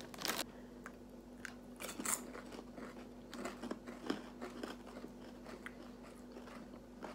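Toffee-coated popcorn being chewed: quiet, irregular crunching, with a louder crunch right at the start.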